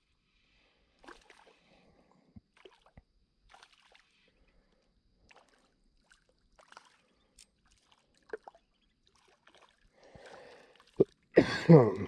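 Faint, scattered small splashes and trickles of creek water with a few light clicks. Near the end comes a short, loud burst of a man's voice.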